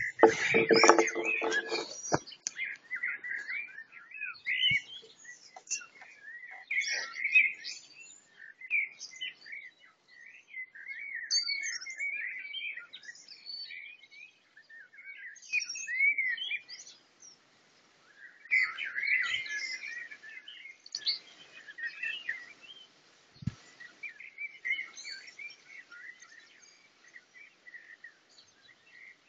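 Birds chirping and warbling in quick, varied phrases from the bush. A louder, lower-pitched call or noise fills the first two seconds.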